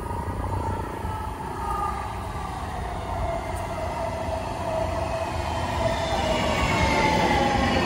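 A Siemens electric light rail train approaching on steel rails: a low rumble with whining tones that slowly glide in pitch. It grows louder over the last few seconds as the train nears.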